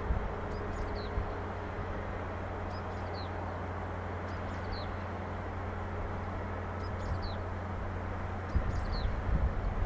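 A small bird repeating a short, high, falling chirp every one and a half to two seconds over a steady low hum of distant outdoor background. Wind rumbles on the microphone near the end.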